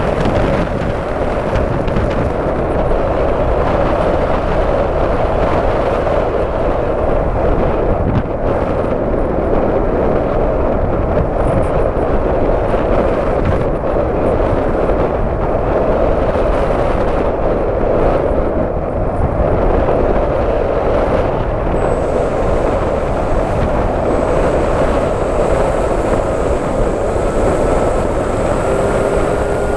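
FPV model aircraft in flight, its motor and propeller running steadily under heavy wind rush on the onboard microphone. A thin high whine joins about two-thirds of the way through.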